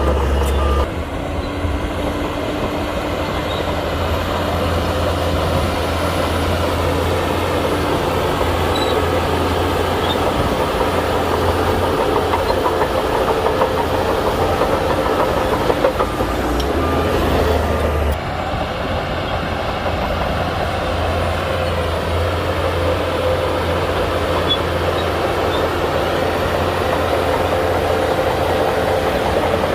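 Crawler bulldozer's diesel engine running steadily under load, with a continuous clanking rattle from its steel tracks. The sound shifts abruptly about a second in and again around eighteen seconds.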